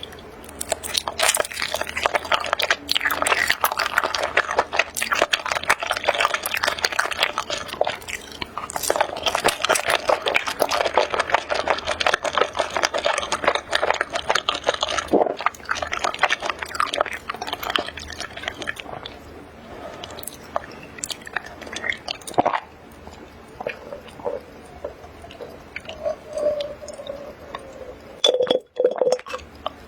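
Close-miked chewing and biting of food, a dense run of rapid wet crackling clicks that thins out after about two-thirds of the way through into scattered smacks.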